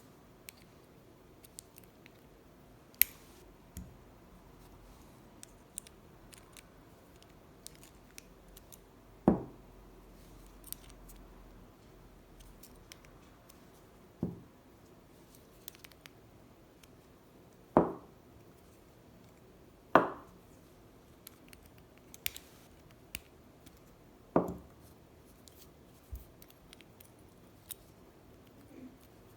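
Keys and old padlocks handled: scattered small metal clicks and clinks, with about half a dozen louder clacks that ring briefly, as keys are tried in one padlock after another.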